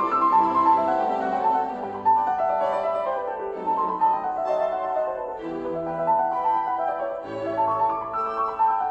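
Background music: piano playing a classical-style melody.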